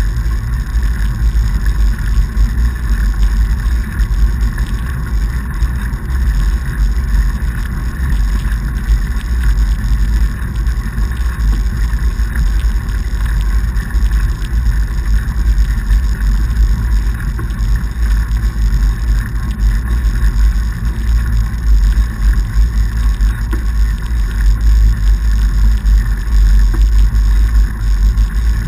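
Steady low rumble of a fatbike riding over packed snow: wide tyres rolling and wind on the microphone.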